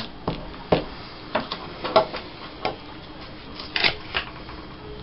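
Irregular light clicks and taps of hands handling small objects on a table, several in a row, the sharpest about two seconds in.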